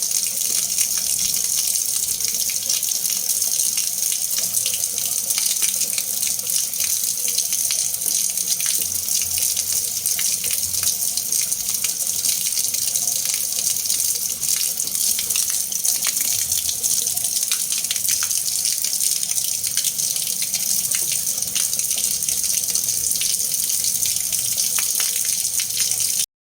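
Water being mixed, churning and splashing in a steady hiss dense with small splashes, which stops abruptly near the end.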